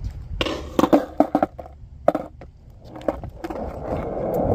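Skateboard wheels rolling on smooth concrete, the rolling noise starting about three and a half seconds in and growing louder. Before it come a run of sharp clicks and knocks.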